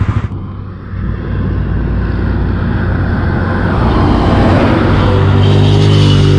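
Yamaha NMAX scooter's single-cylinder engine and CVT pulling away and accelerating. It gets steadily louder, with rushing wind noise, and the pitch begins to rise near the end.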